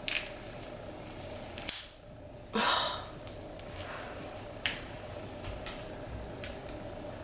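Handling noises: a few sharp clicks and a short rustling burst about two and a half seconds in, over a faint steady hum.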